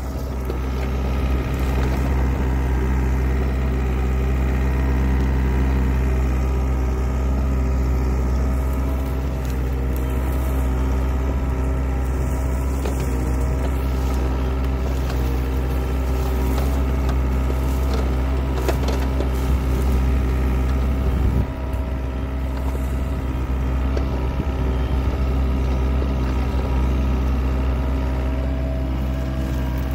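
Volvo excavator's diesel engine running steadily under load while its skeleton bucket digs through soil and dry stalks, with a few brief cracks of stalks and roots breaking.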